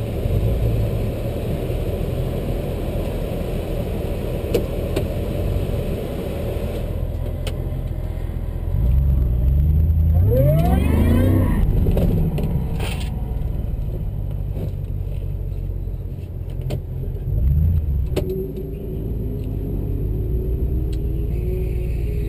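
Vehicle engine rumbling steadily at low speed, swelling louder about nine seconds in with a few quick rising revs, and again briefly later on.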